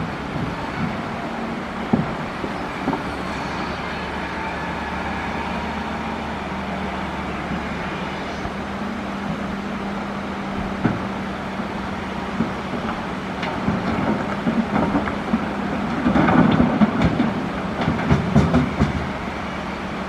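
Caterpillar excavator's diesel engine running steadily, with scattered clanks and then a run of louder scraping and clattering in the last six seconds as the bucket digs into coral rock.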